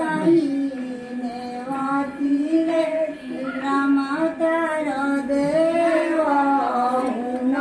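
A woman singing a slow melody with long, gliding held notes.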